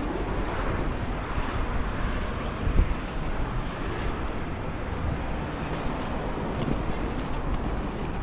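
Inline skate wheels rolling over city pavement, a steady rolling noise with wind on the microphone, and a single knock nearly three seconds in.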